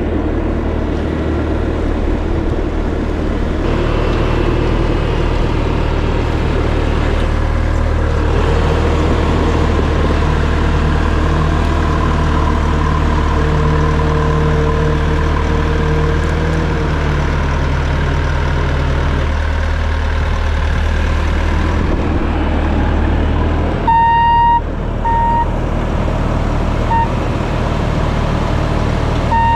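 Bobcat T650 compact track loader running steadily, with a pitched whine through the middle. Near the end its reverse alarm beeps a few times.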